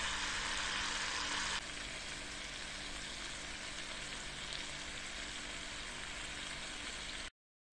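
Meat sizzling in a frying pan: a loud steady hiss that drops suddenly to a fainter hiss about a second and a half in, with a low steady hum underneath.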